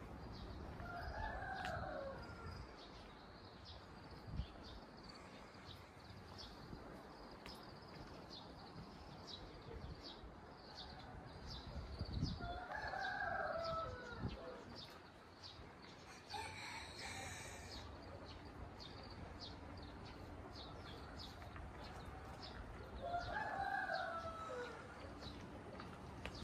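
A Ko Shamo rooster crowing three times, each crow about a second and a half long, roughly ten seconds apart. Faint, rapid high chirping runs underneath.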